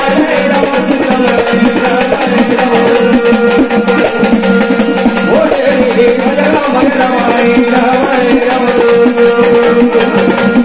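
Marathi jagran-gondhal folk music: fast, even hand-drumming over a steady held note, with a melody gliding in and out at times.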